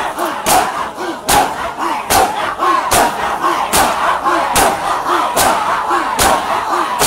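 Matam: a large crowd of mourners striking their bare chests with open hands in unison, a sharp collective slap a little more than once a second, while chanting a nauha refrain together between the strikes.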